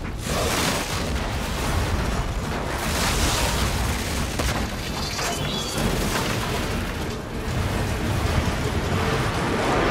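Film soundtrack of a large explosion: a continuous heavy rumble with blasts surging about a third of a second in, around three seconds in and near the end, mixed with the film's music score.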